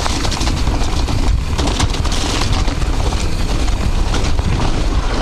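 Mountain bike riding a muddy trail: a heavy wind rumble on the microphone, with the bike's clatter and knocks over rough ground.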